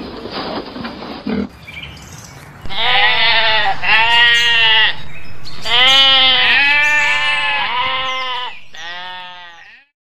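Sheep bleating, about six calls under a second each from more than one animal at different pitches, starting about three seconds in. Before them comes a second and a half of rough, noisy grunting from a wild boar rooting with its snout.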